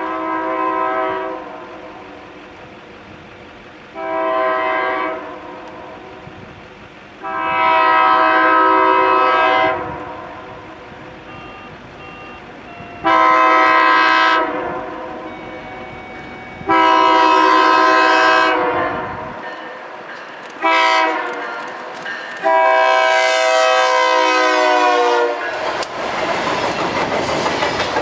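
Diesel freight locomotive's multi-note air horn sounding a series of seven long and short blasts as the train approaches. Near the end the horn stops as the locomotives pass close by, and a loud rush of engine and wheel noise takes over.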